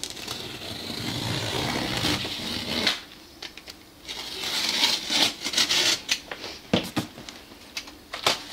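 Utility knife slicing through packing tape and cardboard on a shipping box: two long scraping cuts, the second starting about four and a half seconds in, followed by a few short knocks and rustles of cardboard.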